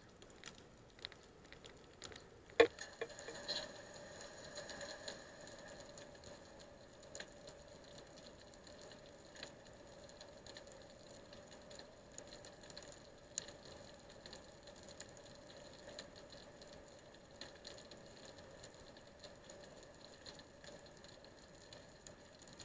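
Faint, scattered clicks and ticks over a faint steady hum, with one sharper knock about two and a half seconds in.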